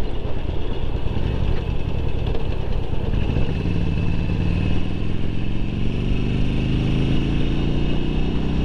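Harley-Davidson Sportster 1200's air-cooled V-twin engine under way. It runs with wind rush on the microphone at first, then accelerates from about three seconds in, its pitch rising steadily.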